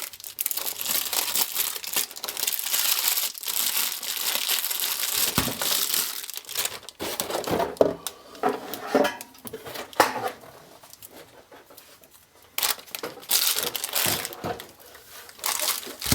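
Packaging crinkling and rustling as a liquid cooler's radiator and pump are unwrapped and handled, with a few knocks partway through and a short lull near the end.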